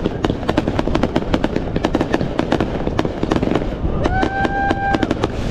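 Fireworks display: aerial shells bursting in a dense run of rapid pops and crackles, many a second, over a low rumble. About four seconds in, a steady high tone sounds for about a second over the crackling.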